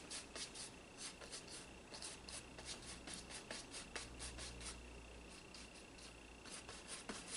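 Flat paintbrush loaded with white acrylic paint scrubbing and dabbing on a stretched canvas, blending the paint in. It gives a faint, quick run of short scratchy strokes, a few a second.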